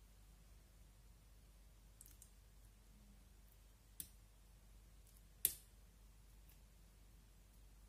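Clear slime pressed and poked with fingertips, giving a few scattered sharp sticky clicks and pops, the loudest about five and a half seconds in, over near silence.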